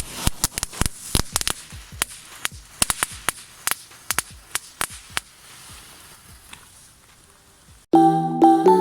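Small Category 1 firework light item (Funke Star Kids) crackling, with many sharp pops that thin out and die away after about five seconds. Music comes in near the end.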